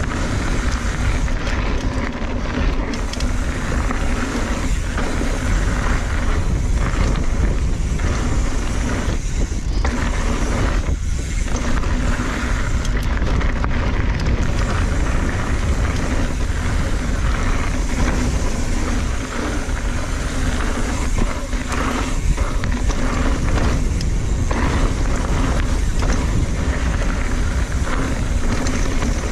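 Hardtail mountain bike rolling fast over a dirt singletrack: steady tyre noise on the loose dirt with irregular rattling from the bike over rough ground, and wind buffeting the chest-mounted microphone.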